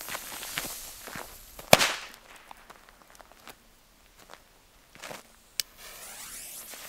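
A Nico firecracker goes off with one sharp bang about two seconds in, amid footsteps on gravel. Near the end a short crack is followed by the steady hiss of a lit fuse burning.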